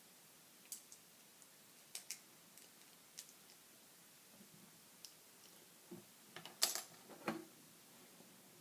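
Plastic LEGO pieces clicking and clattering as they are handled and snapped together: scattered sharp clicks, with a louder cluster of clicks about six to seven and a half seconds in.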